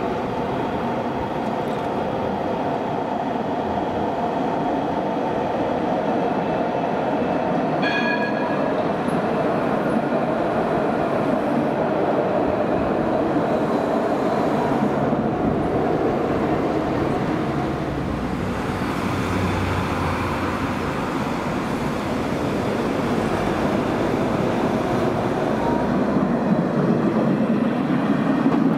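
Alstom Citadis 402 tram rolling along its rails as it approaches and passes close by, a steady loud rumble throughout. A short high-pitched tone sounds about eight seconds in.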